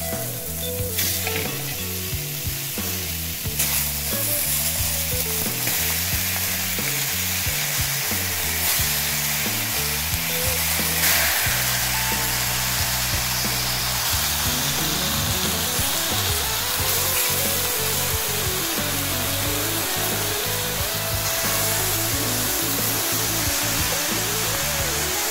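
Garlic, onion and ginger sizzling in hot oil in a steel wok, stirred with a wooden spatula. About 11 seconds in, raw chicken pieces go into the pan and the sizzle turns louder and hissier. Background music plays underneath.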